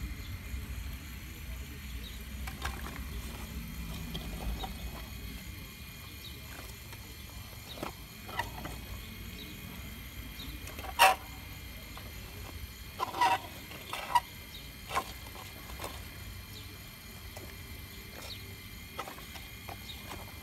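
Shale rocks clicking and clacking as a radio-controlled Caterpillar 349 model excavator's bucket digs into them. A few sharp clacks come about halfway through, the loudest first.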